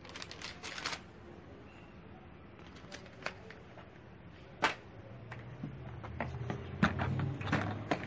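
A paper instruction sheet rustles in the hands for about the first second. Scattered sharp clicks and taps of handling follow, the loudest a little past the middle. A low steady hum builds underneath in the second half.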